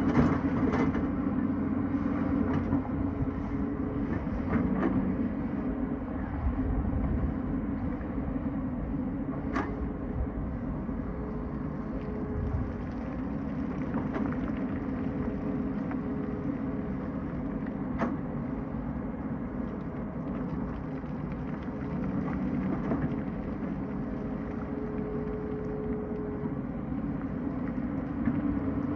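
Tata Hitachi excavator's diesel engine running steadily, with a few sharp knocks scattered through.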